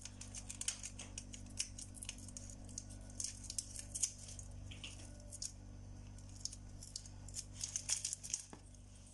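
Faint, irregular small clicks and light rustling over a steady low hum.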